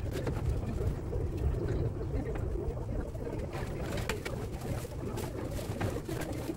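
Steady low background rumble, with light clicks and handling noises in the second half.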